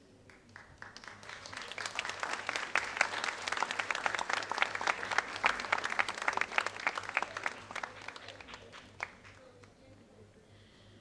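Audience of schoolchildren clapping: applause that builds over the first two seconds, holds, then dies away about nine seconds in.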